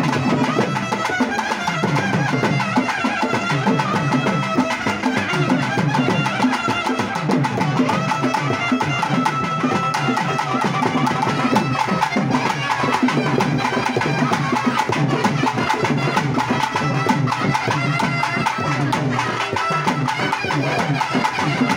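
Traditional Tamil temple-festival music, likely a naiyandi melam band, playing loudly and steadily: fast, even drumming with a held melody line over it. Crowd voices are mixed in beneath.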